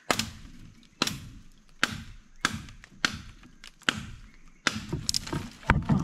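A knife blade hacking repeatedly into a green forked tree branch, with sharp chopping blows a little under a second apart. The wood is hard and strong and resists the cuts.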